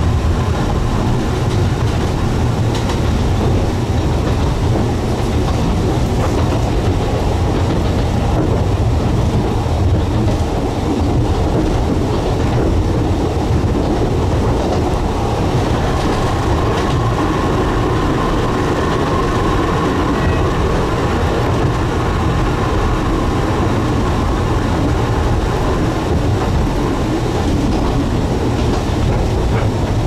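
Steady rumble and rattle of a moving Alishan Forest Railway Chung-Hsing passenger car, heard from inside the car, with occasional light clicks as the wheels run over rail joints.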